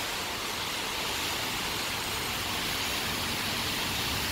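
Steady rain falling on a wet concrete platform: an even hiss with no separate drops or strikes.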